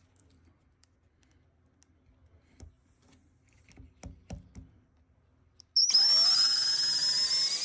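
A few faint clicks and knocks, then near the end an electric drill starts up and runs with a high whine whose pitch rises as it speeds up, a 7/64-inch bit going into a plastic latch standoff.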